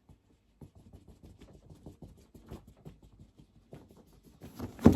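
Cardboard packaging rubbing and scraping as a box is worked open by hand, with a louder thud near the end.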